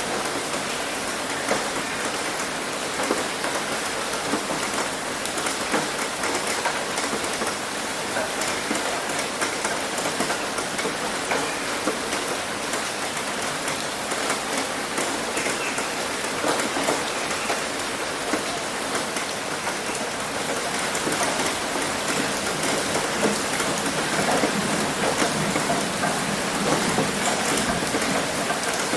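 Heavy rain falling steadily on a roof, a dense patter of drops, growing slightly louder about two thirds of the way through.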